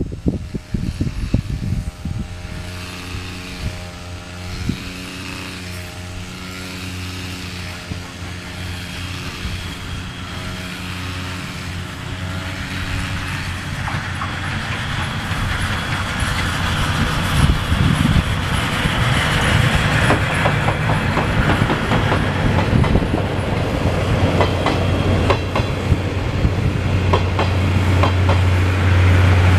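A brush cutter's small engine runs with a wavering pitch as it is swung through grass. From about halfway, steam locomotive C58 363 and its passenger coaches pass close by: a rumble that grows steadily louder, with sharp clicks of wheels over rail joints.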